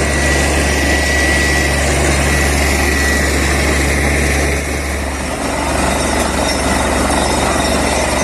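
Borewell drilling rig running loud and steady, its engine and drilling machinery making a deep hum under a broad rushing noise. A thin high whistle fades out about three seconds in, and the noise dips briefly and changes character around five seconds in.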